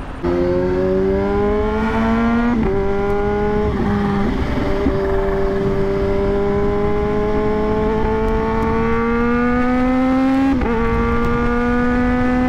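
Kawasaki Z H2's supercharged 998 cc inline-four accelerating hard, heard from the rider's seat: its pitch climbs steadily and drops each time it shifts up, the last shift about two seconds before the end. Wind rush runs underneath.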